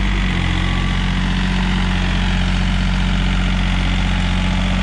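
John Deere 5036 EN tractor's diesel engine running steadily under load as it pulls a tine cultivator through the soil.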